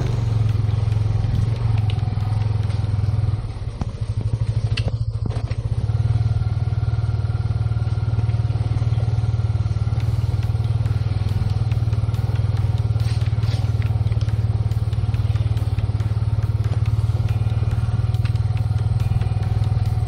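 Motorcycle engine running at a steady pace as the bike rides along, easing off briefly about four seconds in.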